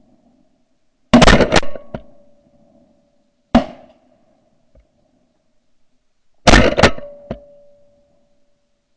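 Several shotguns firing at ducks: a quick volley of shots about a second in, a single shot midway, and another volley near the end, each shot ringing out briefly.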